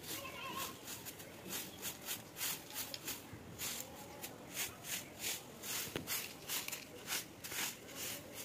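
Short hand broom of dried grass sweeping a packed-earth floor, a steady rhythm of brisk swishing strokes, about two or three a second. A single sharp click about six seconds in.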